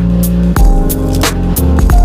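Background music with a steady electronic beat: deep bass notes, a kick drum and crisp hi-hat ticks about four times a second.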